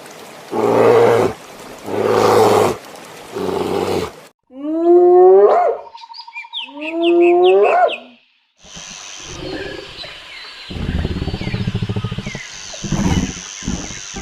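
A string of wild animal calls: three short, rough calls in quick succession, then two long pitched calls that rise and fall, and after a short gap a run of rough, pulsing growls.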